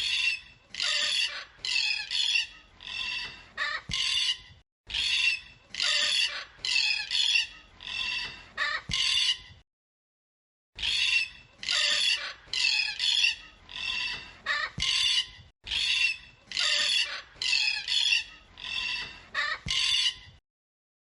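A bird calling over and over: short, loud calls about one a second, in runs of five or six, broken by brief gaps of dead silence.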